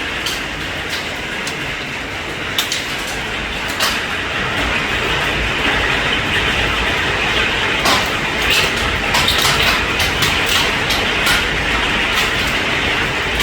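Hailstones striking hard surfaces as separate irregular sharp cracks over the steady hiss of heavy rain, the impacts growing more frequent and the rain slightly louder after the first few seconds: the start of a hailstorm.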